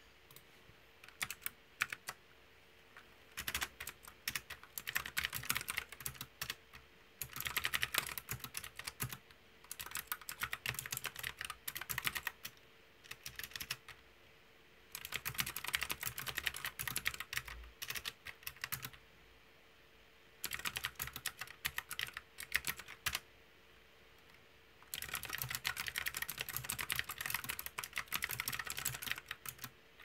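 Typing on a retro mechanical keyboard with round, typewriter-style keycaps: fast runs of key clicks lasting a few seconds each, broken by short pauses, with only a few scattered clicks in the first couple of seconds.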